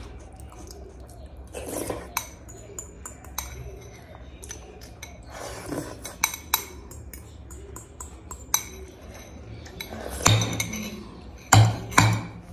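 Metal spoon clinking and scraping against a glass bowl while soup is eaten and slurped from it, with two heavier knocks near the end as the glass bowl is set down on a plate.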